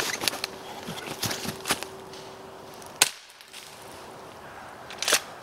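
A shotgun firing a squib test shell: a single sharp pop about three seconds in, much weaker than a normal shot, with the wad left stuck in the barrel. Lighter clicks and knocks come before it and once more near the end.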